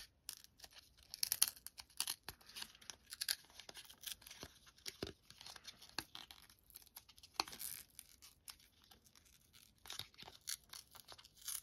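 A thin paper card sleeve being picked at and torn open by hand: faint, irregular tearing and crinkling.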